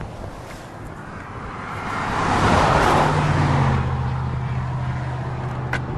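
A road vehicle passes by, its noise swelling to a peak about halfway through and then fading. From the midpoint on, a steady low engine hum runs on underneath, as of an engine idling.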